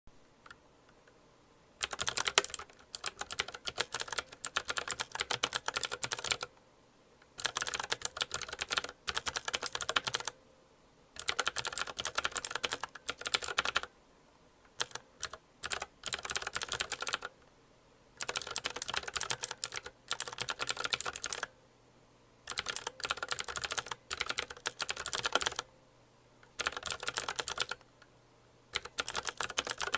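Typing on a Patech 87-key mechanical gaming keyboard with clicky blue switches: fast runs of sharp key clicks lasting a few seconds each, broken by short pauses of about a second.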